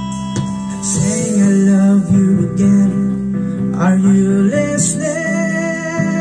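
Karaoke song music playing from a Platinum karaoke player through a Joson JS8800B amplifier and a pair of loudspeakers.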